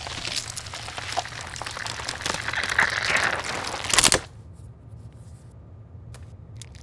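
A fruit stem crunching and crackling as it is squeezed between the jaws of a metal cutter, ending in one loud sharp snap just after four seconds as it is cut through, followed by a few faint clicks.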